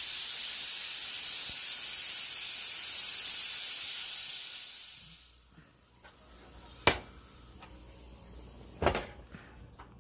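Aluminium stovetop pressure cooker venting steam with a loud steady hiss that dies away about five seconds in as the pressure is released. Then two sharp metal clicks as the lid is twisted open.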